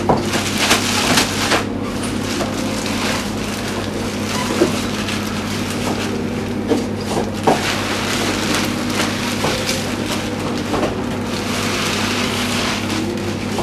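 A clear plastic bag crinkling and rustling as cooked pearl barley is shaken and poured out of it, with a few sharp crackles. A steady low hum runs underneath.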